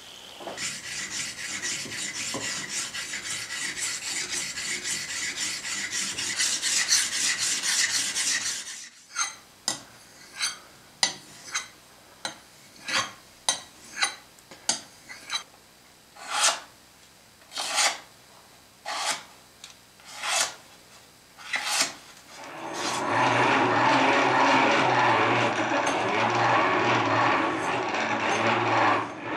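A steel knife blade is stroked on a wet whetstone, first in quick back-and-forth scraping for about nine seconds, then in slower single strokes about one a second. From about 23 seconds in, an electric cloth buffing wheel runs steadily with a low hum as the blade is pressed against it.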